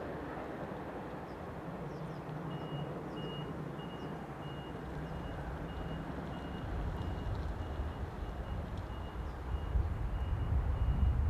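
Low rumble of a passing or approaching train, growing louder over the last few seconds, with a faint high electronic beep repeating about twice a second from about two seconds in.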